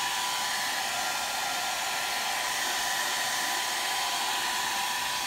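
Hand-held hair dryer blowing steadily: a constant airy rush with a thin, steady whine.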